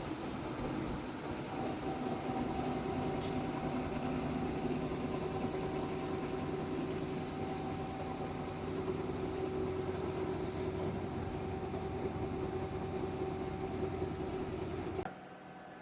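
Claas Lexion combine beater drum spinning steadily on a dynamic balancing machine, a constant mechanical hum with a steady tone. The sound cuts out abruptly near the end.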